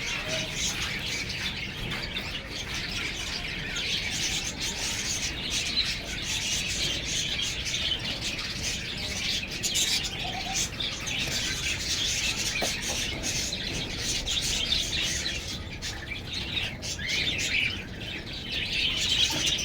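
Many small cage birds chirping together in a continuous, dense chatter.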